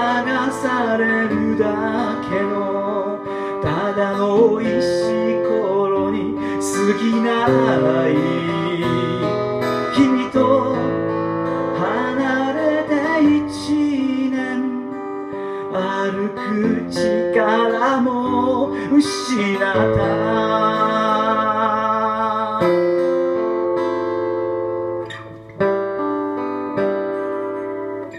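Acoustic guitar strummed in a live song with a man singing over it. About twenty seconds in the singing drops out and the guitar carries on alone.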